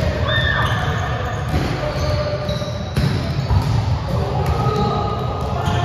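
Volleyballs being hit and bouncing on a gym floor: repeated thuds echoing in a large hall.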